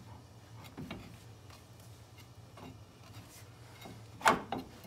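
Brake rotor being handled and seated on a truck's wheel hub: light clicks and rubbing, then a sharp metal clank about four seconds in, followed at once by a smaller knock.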